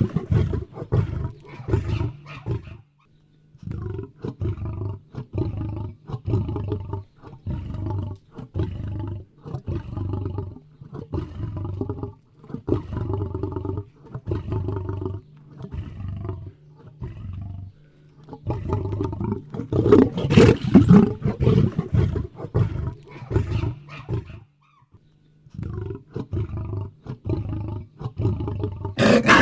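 Lion roaring in bouts: loud full roars at the start, then a long series of short grunts repeated roughly every half second, and another loud run of roars about two-thirds of the way through, followed by more grunts.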